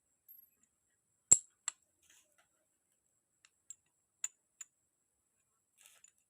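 Half a dozen separate sharp clicks and taps of small parts or tools being handled while a grass-cutter engine is worked on, the loudest about a second in.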